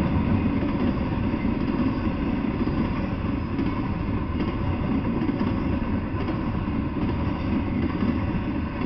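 Double-stack intermodal freight train rolling past, its steel wheels on the rails making a steady low rumble.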